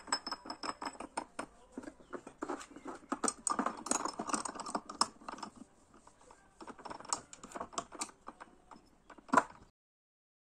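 Irregular light clicks and rattles of the aluminium clamping plate being screwed by hand onto the Parkside PDM 600 lathe's spindle thread and tightened, with one louder knock near the end. The sound then cuts off.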